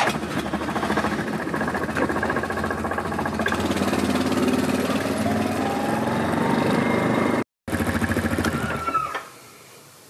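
Yamaha quad bike engine running, its pitch climbing steadily from about four seconds in. The sound breaks off for a moment near seven and a half seconds, then stops suddenly just after nine seconds.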